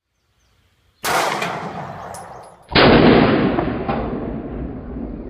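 Two loud shots from a compact 9mm pistol, about a second and a half apart, each trailing off in a long echoing decay; the second is the louder.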